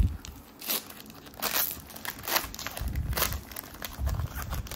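Foil Pokémon TCG booster pack wrapper crinkling and tearing as it is ripped open by hand, in four sharp rustles roughly a second apart.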